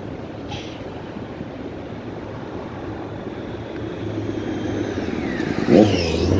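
Road traffic running steadily, growing louder near the end as a vehicle passes close by with a falling pitch.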